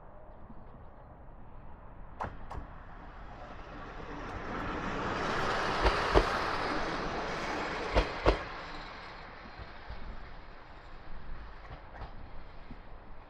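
Diesel railcar passing, its noise building up and fading away, with the wheels clacking over a rail joint in pairs, loudest as two double clacks about two seconds apart near the middle.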